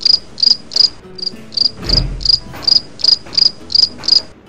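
Cricket chirping, the comic 'awkward silence' sound effect: evenly spaced chirps about three a second that stop abruptly near the end. A dull low thud comes about two seconds in.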